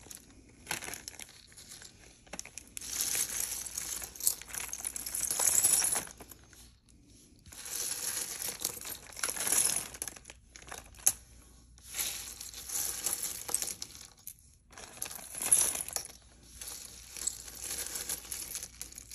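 Loose costume jewelry and beads being handled and sorted by hand, the pieces clinking together amid rustling. The rustling comes in several bursts of a few seconds each.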